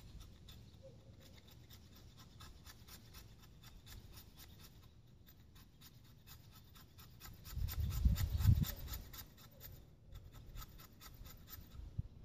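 A knife's 90-degree spine is scraped along a wooden stick in quick repeated strokes, rasping off fine tinder shavings. A louder low rumble comes in about two-thirds of the way through.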